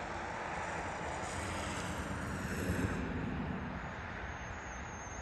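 Steady rushing noise with a low rumble, swelling slightly about two to three seconds in.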